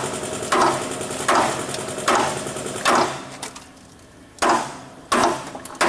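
Hammer blows on metal, about eight sharp ringing strikes at a steady pace with a short pause midway, pounding to break loose a seized bolt on a car frame.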